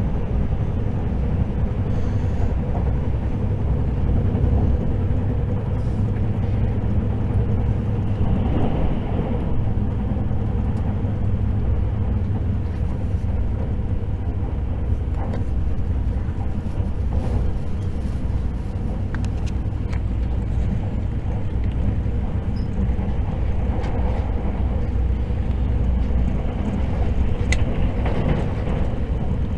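Running noise heard inside a passenger car of the Hakutaka limited express electric train, cruising at steady speed: a constant low rumble of wheels on rail, with a few faint clicks.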